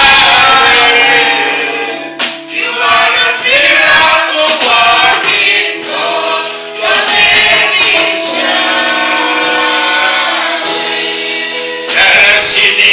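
Gospel choir and congregation singing a worship song.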